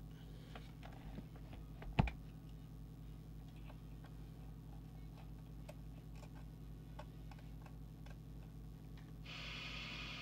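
Faint scattered ticks and clicks of a plastic trimming tool working inside an open CB radio chassis, over a steady low hum, with one louder knock about two seconds in. Near the end a steady hiss comes in suddenly.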